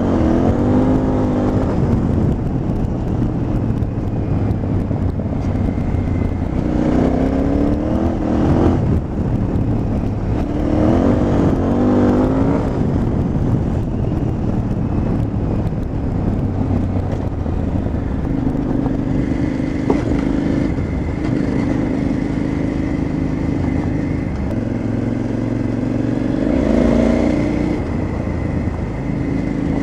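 KTM 950 Adventure's V-twin engine running under way on the move, rising in pitch as the throttle opens about four times and holding steady between, with constant wind noise.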